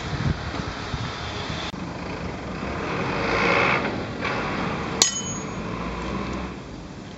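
T-handle socket wrench doing the final tightening of a Honda Super Cub 110's oil drain plug: scraping and rustling as it turns. About five seconds in comes one sharp metal clink with a short ring.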